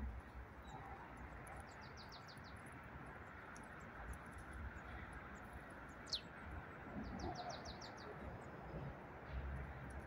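Steady hiss of distant road traffic, with small birds calling over it. A quick run of about six short high notes comes about two seconds in. A single sharp falling note, the loudest sound, comes about six seconds in. Another quick run of about six high notes follows just after it.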